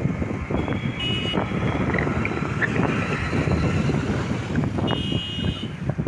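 Road traffic noise heard from a moving two-wheeler: a steady rumble of engines and tyres, with short high-pitched beeps about a second in and again near the end.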